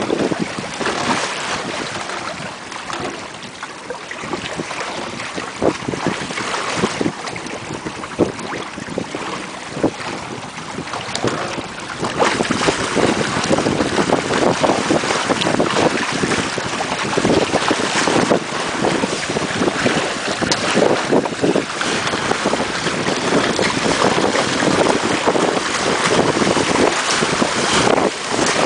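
Wind buffeting the microphone and water rushing and splashing against the hulls of a small sailing trimaran going to windward through chop. It grows louder about twelve seconds in.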